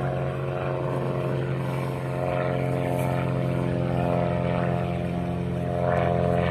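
Propeller engines of two small planes flying overhead, a steady drone whose pitch slowly swells and wavers, over the low steady hum of an idling truck engine.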